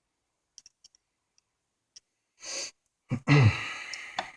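A few faint clicks of small metal bicycle-hub parts being handled, then a loud, breathy sigh with a falling voice about three seconds in.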